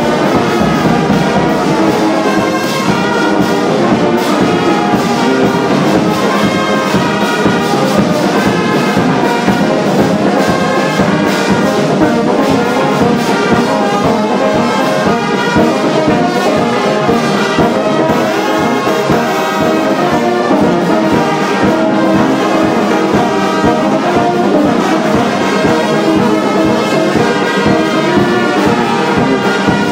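Brass band playing continuously, with a sousaphone among the instruments.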